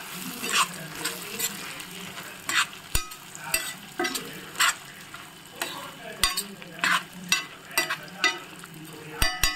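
Metal spoon scraping and clinking against a steel frying pan as roasted peanuts are stirred and tossed in hot oil, over a low frying sizzle. The scrapes come irregularly, about one or two a second.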